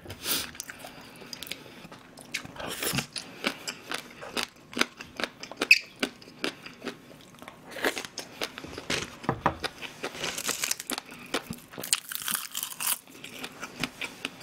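Close-miked chewing and crunching of food, an irregular run of crisp crunches and small clicks with several louder spells.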